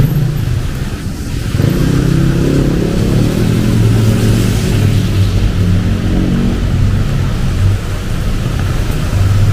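A motor vehicle's engine running close by on a wet street, its note coming in about a second and a half in and carrying on, over a steady hiss of rain and traffic.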